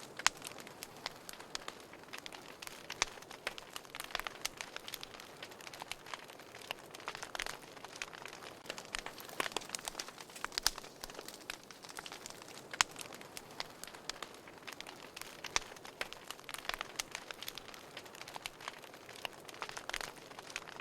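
Wood fire crackling in a fireplace: a soft steady hiss of burning with frequent irregular pops and snaps, a few of them sharply louder than the rest.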